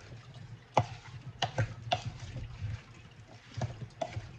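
Wooden spoon tossing butter-coated potato chunks in a ceramic slow cooker crock: irregular knocks and scrapes of spoon and potatoes against the crock, the sharpest about a second in.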